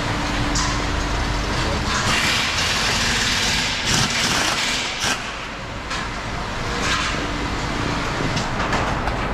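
Steady workshop noise with a low hum, a louder hiss from about two to five seconds in, and two sharp knocks around four and five seconds in.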